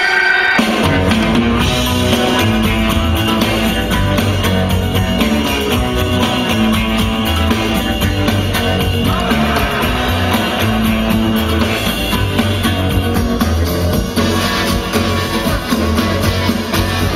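Loud music with a heavy bass line and a beat. A new passage starts about a second in.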